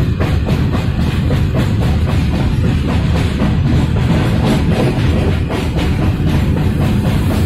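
Rock-style music with a steady, heavy drum beat.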